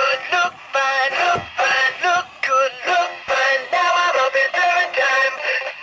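Animatronic singing trout on a wall plaque, playing a song with sung vocals and backing music. The sound is thin, with little bass.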